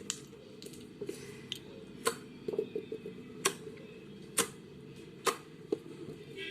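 Slime being handled and squeezed, giving a series of sharp clicking pops, roughly one or two a second.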